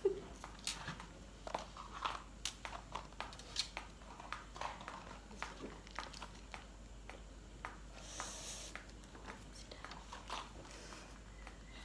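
Small plastic sauce sachets being torn open and squeezed over fries: scattered crinkles and light clicks, with a brief hiss about eight seconds in.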